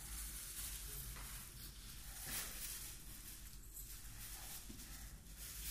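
Quiet indoor room tone: a steady low hum with faint rustling and movement sounds.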